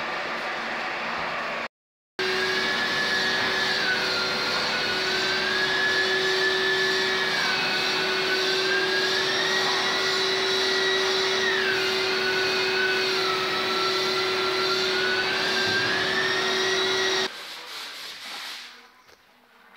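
Long-reach drywall sander with its vacuum dust extraction running against a gypsum skim-coated ceiling: a steady motor drone with a higher whine that drifts up and down. It starts after a brief gap about two seconds in and stops abruptly near the end, leaving quieter rubbing of sanding.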